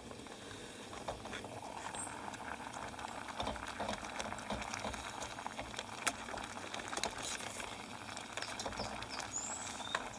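A pot of rehydrating camp breakfast simmering over the heat: a steady bubbling crackle with scattered small ticks.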